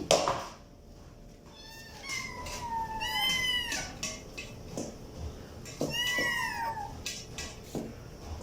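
A kitten meowing: a long, high meow from about two seconds in, whose pitch falls and then rises and falls, and a second meow a little after halfway. A sharp knock sounds right at the start, with a few softer knocks between the meows.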